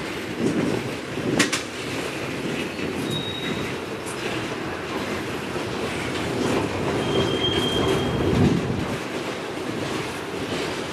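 Railroad cars rolling past with a steady wheel-on-rail rumble, short high-pitched wheel squeals now and then, and a sharp click about a second and a half in.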